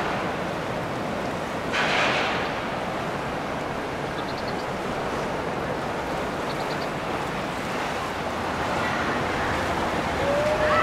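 Steady rush of wind and water, with a brief louder gust or splash about two seconds in.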